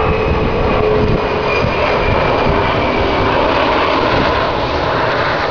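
Steady, loud rumbling noise with a faint droning tone over it.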